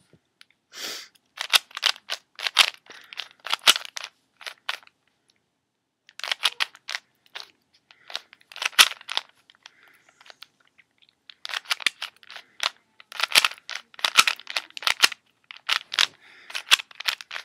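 Rubik's Cube being turned by hand, its plastic layers clicking in quick runs of turns with short pauses between runs.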